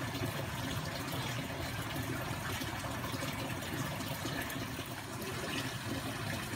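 Steady sound of running water, an even rushing trickle with no distinct splashes.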